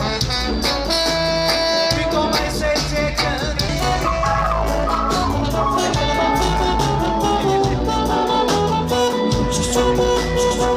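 A live ska band playing loudly: drums and bass keeping a steady beat under electric guitar and keyboards, with long held melody notes on top.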